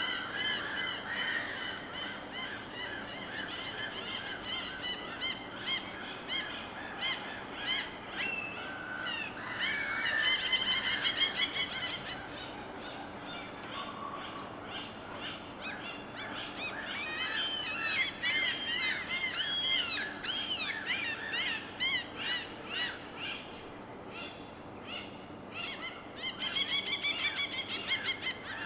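Several birds calling over one another in quick series of short, arched calls, with busier flurries about a third of the way in, around the middle and near the end.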